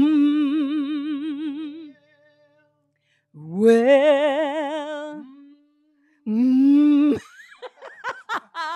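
A woman's voice singing long, wordless held notes with a wide vibrato, unaccompanied. There are three phrases with short silent pauses between them, followed by a few short broken vocal sounds near the end.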